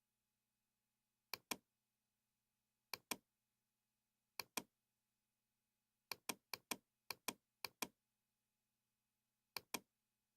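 Computer mouse clicking over a faint steady hum: eight clicks, each heard as a quick pair of sharp ticks, with four coming close together about six seconds in.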